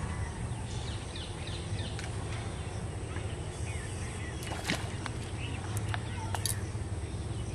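Birds chirping over a steady low background rumble, with a few sharp clicks in the second half.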